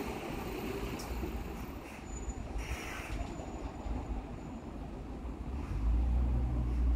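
Low, steady outdoor rumble that grows into a stronger low hum near the end, with a brief hiss about three seconds in.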